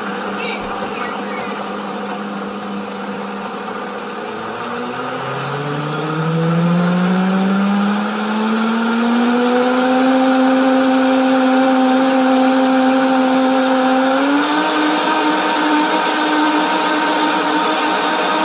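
Vitamix blender motor running its smoothie program, blending a thick fruit smoothie. The motor tone dips about four seconds in, then rises steadily and gets louder as the speed ramps up, and steps up in pitch once more near the end.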